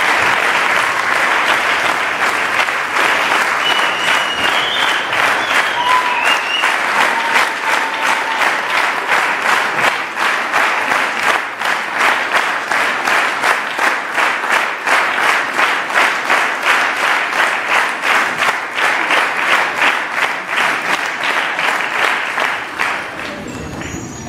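Large audience applauding. About ten seconds in, the clapping falls into a steady beat, everyone clapping together, and it dies down near the end.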